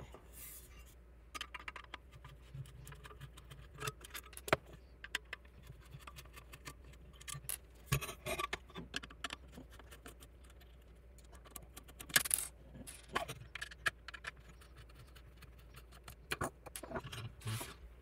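Screwdriver taking screws out of a power bar's solid metal case, in sped-up footage: scattered metallic clicks and short scrapes, with small screws clinking onto the tabletop. The loudest scrapes come about 8 and 12 seconds in.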